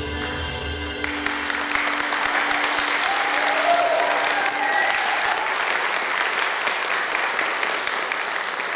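Small audience applauding at the end of a song, the clapping starting about a second in as the last piano notes ring out and fade.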